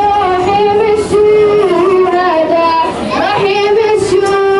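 Young voices singing a song, holding long, steady notes with short slides between them.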